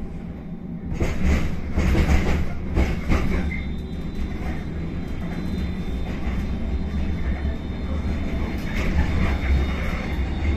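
Tram running on its rails, heard from inside the passenger car: a steady low rumble that grows louder about a second in, with sharp wheel knocks over the track in the first few seconds and a thin steady high whine.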